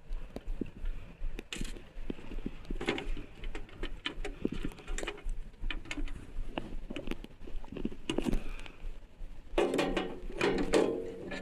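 Irregular rustling with many small clicks and knocks, typical of handling noise on a phone microphone worn against the body. A denser pitched stretch comes near the end.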